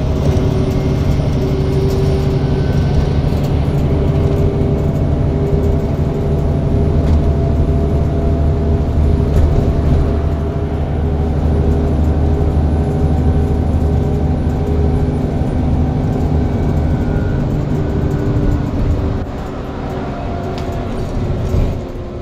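Bus engine and drivetrain running steadily as the bus travels along the road, heard from inside the passenger saloon: a low engine drone with a steady whine above it, easing slightly near the end.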